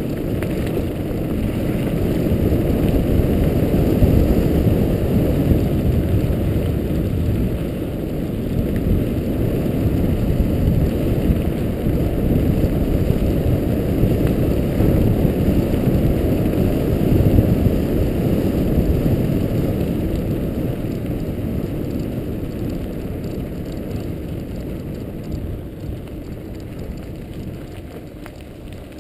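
Mountain bike rolling fast down a gravel forest track: a dense low rumble of tyres on loose stone, growing quieter over the last several seconds.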